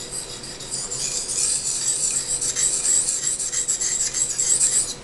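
Steel knife blade drawn in quick repeated strokes across a small hand-held oiled sharpening stone, a steady high scraping hiss. These are the final light passes that bring up the edge after the coarse stone.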